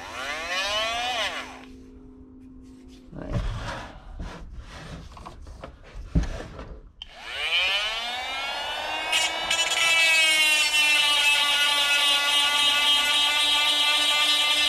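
Oregon electric chainsaw chain sharpener: its grinding motor whirs up briefly at the start, a few seconds of rubbing and clicking follow as the chain is handled, then about seven seconds in the motor spins up again and runs steadily with a high whine.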